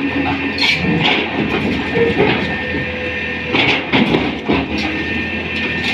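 Tata Hitachi 200 hydraulic excavator running, with a steady engine hum and irregular metal clanks and clatter.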